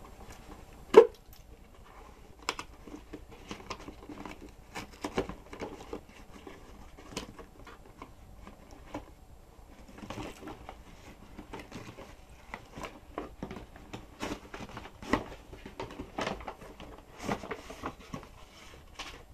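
A cardboard gift box and its tissue-paper packing being handled and opened: irregular clicks, knocks and rustles, with one sharp knock about a second in.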